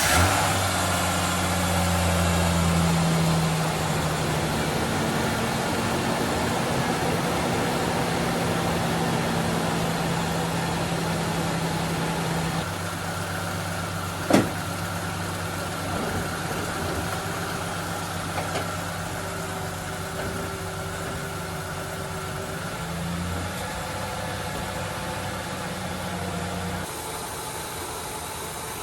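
1999 Ford Ranger's 4.0-litre V6 idling steadily just after starting, a little stronger for the first few seconds before settling. A single sharp knock about halfway through.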